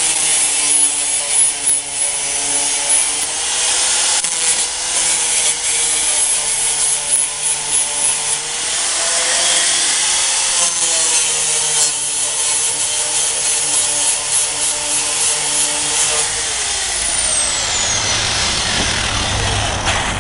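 Electric angle grinder grinding down the protruding tips of steel screws driven through a pegboard's wooden framing, its motor pitch sagging and recovering as it bites. About 17 seconds in it is switched off and whines down.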